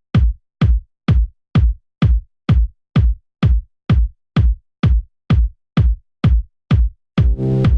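Electronic dance music: a lone drum-machine kick drum beating about twice a second, each hit dropping in pitch, until the full track with bass, synth chords and hi-hats comes in about seven seconds in.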